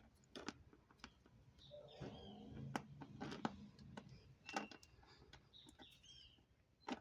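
Faint clicks and light rattles of a sealed O-ring motorcycle drive chain being handled and flexed by hand, checked for stiff, worn links. A few faint bird chirps sound in the background.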